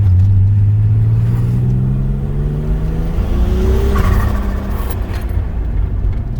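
Turbocharged VR6 engine accelerating under boost, its pitch rising steadily for about four seconds, then easing off with a short burst of hiss around four seconds in as the revs drop.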